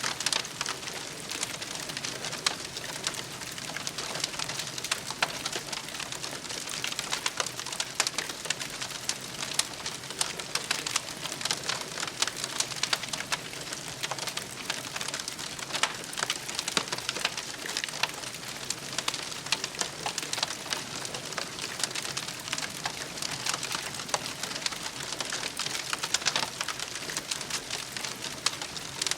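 Campfire crackling steadily: a dense, continuous run of small pops and ticks over a soft hiss.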